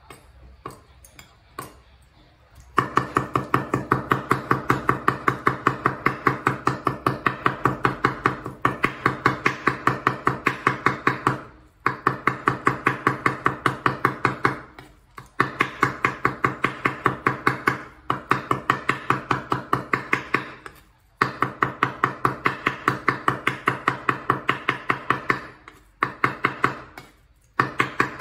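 A cleaver chopping repeatedly on a wooden cutting board, mincing soft food. Rapid, even strokes come several a second in runs of a few seconds with short pauses, after a few light scattered taps at the start.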